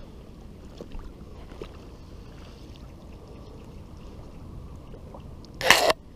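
A hooked pike on a spinning lure thrashing at the surface close in, with one short, loud splash near the end.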